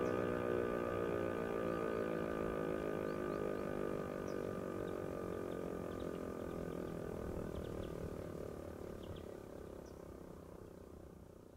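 DS977 motor siren winding down after being switched off: its wail slides slowly lower in pitch and fades away. Faint bird chirps are heard over it.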